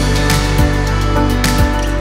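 Background music: sustained instrumental tones over a recurring low drum beat.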